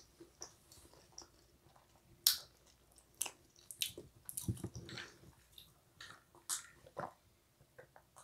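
Pizza being chewed, with irregular sharp mouth clicks and smacks and a duller thump about halfway through.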